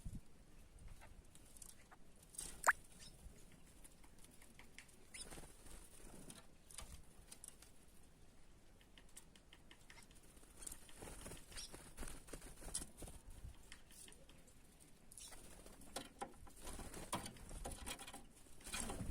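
Small birds at a dish of drinking water: scattered light taps and patter of pecking and hopping, with one short high squeak about three seconds in.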